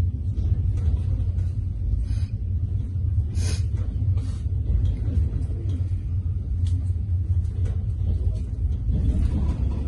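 Steady low rumble of a passenger train in motion, with scattered short clicks and one brief sharp, high noise about three and a half seconds in.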